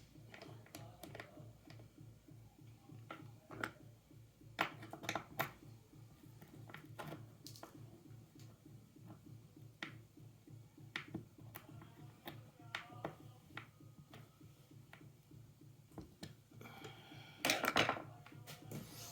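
Scattered light clicks, taps and knocks of objects being handled, with a louder rustling, scraping burst lasting about a second near the end.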